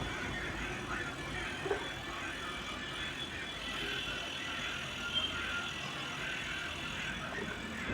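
Inverter refrigerator compressor running steadily on the bench, driven by a just-repaired inverter board with a replaced IGBT. It runs without fault, with a couple of faint ticks.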